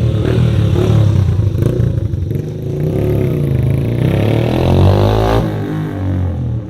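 Yamaha YBR 125 Factor's single-cylinder four-stroke engine running loud through a Roncar aluminium oval aftermarket exhaust with its baffle removed. The pitch rises and falls as the engine is revved.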